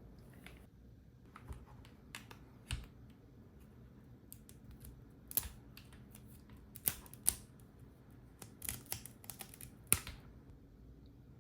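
Keystrokes on a custom mechanical keyboard with BSUN Bunny linear switches (PC top housing, PA bottom housing, LY stem, early bottom-out) on an aluminium plate: sparse, irregular single key presses, each a short click.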